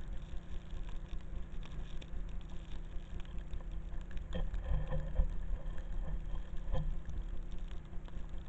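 Wind buffeting the microphone of a pole-held camera with the steady hiss of sliding over snow during a downhill run. A short knock comes about four seconds in and another near seven seconds.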